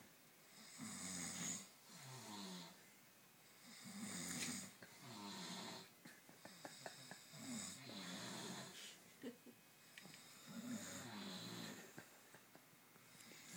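Two men snoring in their sleep, a snore about every three seconds, each one in two parts.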